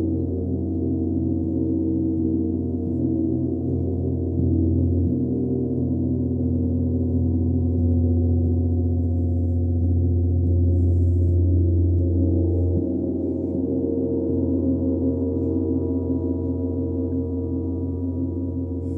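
Large bronze gong played with two soft-headed mallets. Gentle repeated strokes keep up a deep, steady wash of many overlapping tones that swells a little in the middle.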